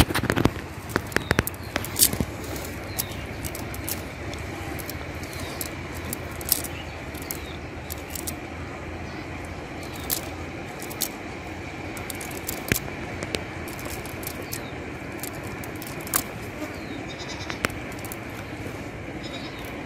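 Scattered sharp clicks and rustles, densest in the first couple of seconds, from a cast net being handled on mud, over a steady outdoor background noise.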